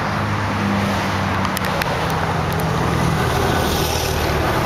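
2007 Chevrolet Impala LT's 3.5-litre V6 idling steadily, heard close to the muffler and tailpipe.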